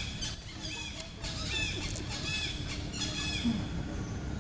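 A series of short, high chirping calls, each rising and falling in pitch, repeated about once a second over a steady low background hum.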